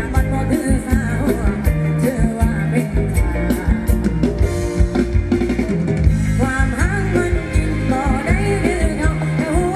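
Live band playing Thai ram wong dance music, with a steady drum beat, bass and singing.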